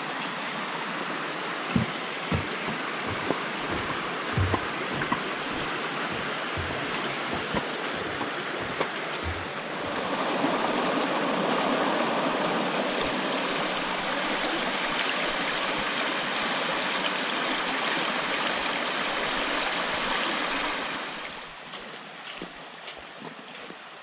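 Steady rushing of a mountain stream or small waterfall. It grows louder about ten seconds in and falls back to a softer rush shortly before the end. A few low thuds from the water can be heard in the first half.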